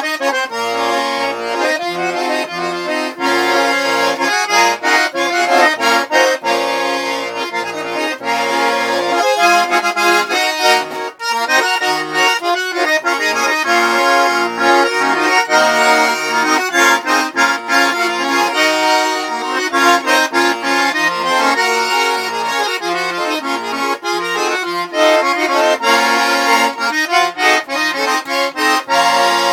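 Accordion playing an instrumental introduction: a melody over sustained chords and a recurring pattern of low bass notes, leading into a Russian folk-style song.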